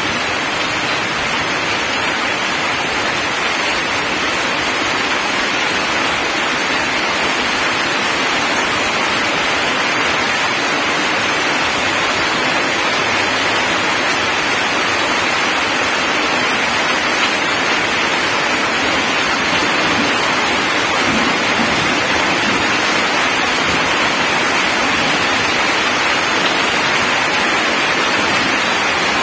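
Heavy rain falling on gravel and water-logged ground: a dense, steady hiss of drops that keeps an even level throughout.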